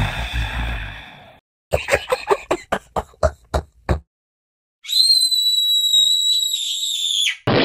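Cartoon sound effects: a loud boom that fades away, then a rapid run of about nine short sharp snaps, then a steady high-pitched whistling tone that cuts off suddenly near the end.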